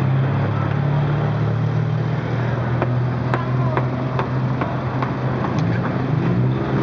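Busy street market ambience: a steady low engine hum from a nearby motor vehicle under faint voices and chatter, with a run of sharp clicks and clinks about three to six seconds in.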